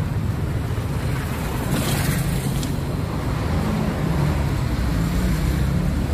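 City street traffic: a steady low rumble of passing cars and engines, with a brief hiss about two seconds in.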